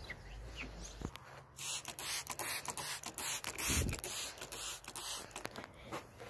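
Glass cleaner sprayed and wiped on a car windshield: a quick run of short hissing bursts that starts about one and a half seconds in and stops a little after five seconds.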